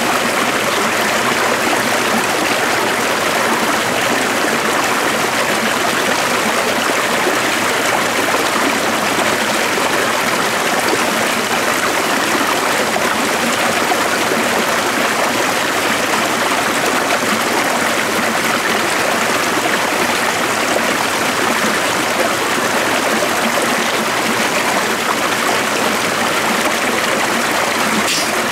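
Stream water flowing in a steady, even rush with no breaks or changes.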